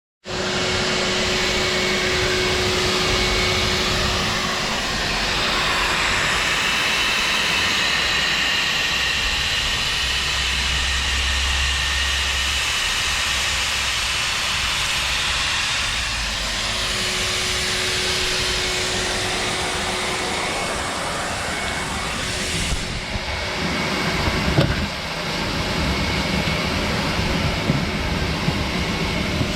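Shop vac motor running steadily as a blower, a loud rushing with a wavering high whine, with a few knocks and clatters of handling around three quarters of the way through.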